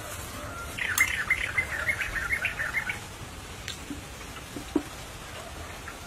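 A bird calling a rapid series of short chirps for about two seconds, starting about a second in. A couple of light clicks come later.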